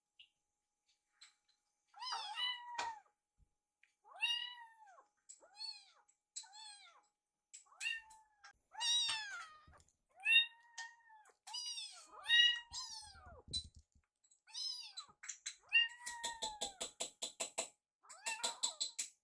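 Baby kittens mewing again and again, each call a short rise and fall in pitch, a dozen or more in a row. Near the end comes a quick run of short pulses, about five a second.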